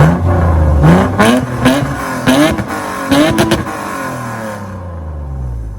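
Lexus IS300's straight-six engine blipped through its exhaust: about five quick revs in the first three and a half seconds, then dropping back to a steady idle.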